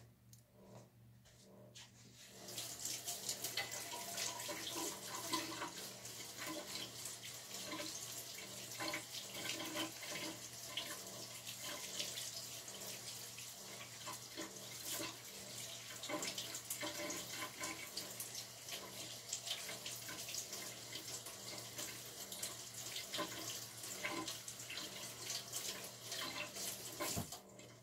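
Running water, as from a tap into a sink, starting a couple of seconds in and stopping shortly before the end, with a low steady hum underneath.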